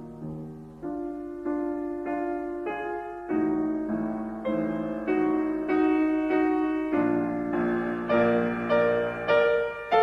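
Gentle piano music: a slow melody of struck notes and chords, each ringing and dying away before the next.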